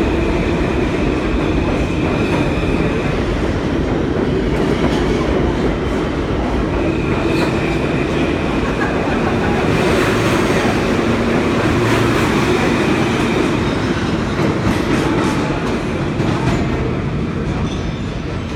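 New York City subway train running through an underground station, a continuous loud rumble of wheels on rails with clicks over the rail joints. A high steady whine comes in and out over it.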